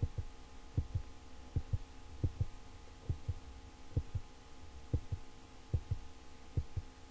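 Faint, low, dull thumps, mostly in close pairs and a little under one pair a second, like a heartbeat, over a steady electrical hum.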